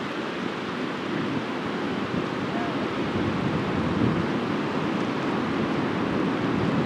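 Steady rushing of a fast-flowing river, mixed with wind buffeting the microphone.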